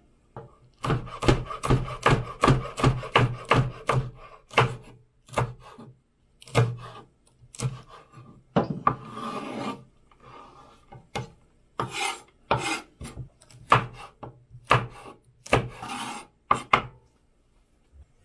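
Chef's knife chopping garlic and chili peppers on a wooden cutting board: sharp knocks of the blade on the board, in a quick run of about four a second at first, then in shorter, more spaced-out runs.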